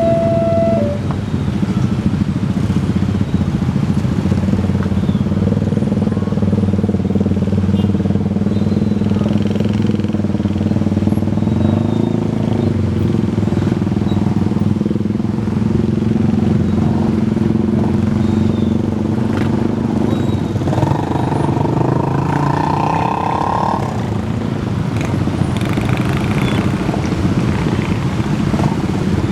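The level-crossing alarm siren, two alternating tones, cuts off about a second in. Motor vehicle engines then run steadily at the crossing, motorcycles among them, with a louder passage a little past two-thirds of the way through.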